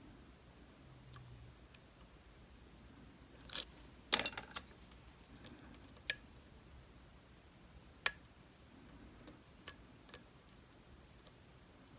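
Scattered small clicks and metal taps of lock picks working the pins of a DOM RS8 high-security cylinder. The loudest is a short cluster of clicks about four seconds in; single clicks follow every second or two.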